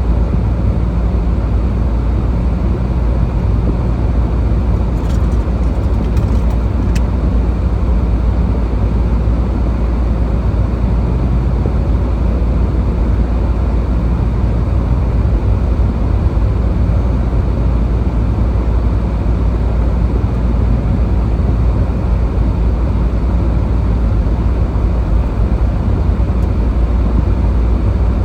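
Steady low rumble of a car driving, with tyre and engine noise heard from inside the cabin.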